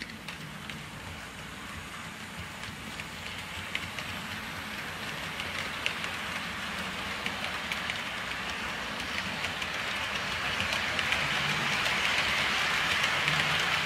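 Model freight train running on sectional track: small metal wheels rolling with a rapid scatter of light clicks, growing steadily louder as the cars pass close by.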